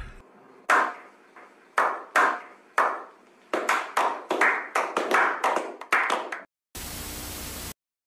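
Several people's hand claps: a few single claps about a second apart, then quicker clapping that stops about six and a half seconds in. Then comes about a second of steady hiss.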